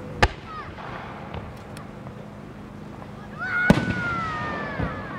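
Aerial firework shells bursting: a sharp bang about a quarter second in, then a louder one near the end, followed by a drawn-out sound that slowly falls in pitch. The shells are 4-gō (about 12 cm) changing-colour peony shells.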